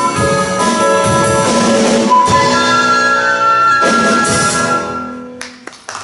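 Live band with brass and drums playing the closing bars of a song, ending on a held chord that cuts off about five and a half seconds in, followed by applause.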